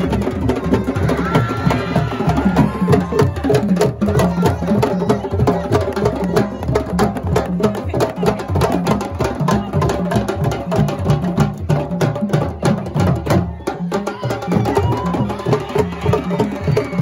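A group of drummers playing fast, dense rhythms on hand drums, with crowd voices underneath.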